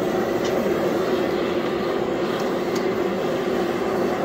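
Electric forge blower running steadily, a hum over rushing air feeding the coal fire, with a few faint clinks.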